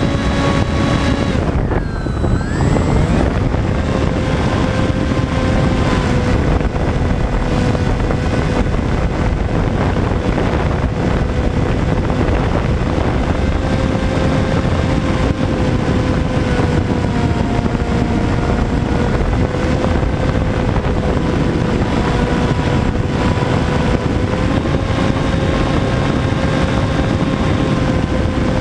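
Electric motor and propeller of a Sky Surfer RC plane running at a steady whine under a rush of wind; about two seconds in the motor note cuts back briefly and rises again as the throttle is brought back up.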